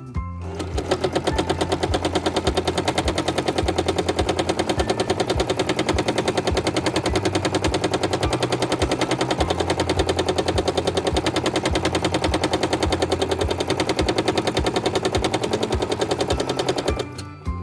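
Domestic sewing machine stitching with a hopping foot during free-motion quilting: a fast, even stitching rhythm that starts just after the beginning and stops just before the end.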